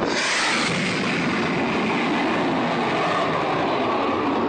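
Loud, steady roar of a jet fighter making a low, fast pass overhead.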